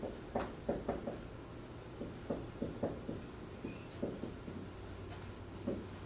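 Dry-erase marker writing on a whiteboard: a run of short strokes in quick clusters, with brief pauses between them.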